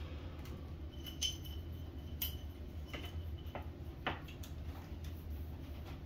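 A few light, scattered clicks and taps of wires, wire nuts and a plastic receiver module being handled and pushed up into a ceiling fan canopy, over a steady low hum.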